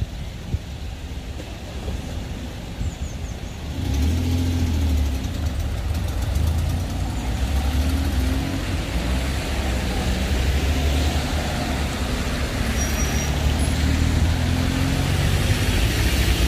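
Cars driving off over the level crossing once the gates are open: engines and tyres passing close by. The engine noise comes in loud about four seconds in and carries on steadily as the queue of traffic follows.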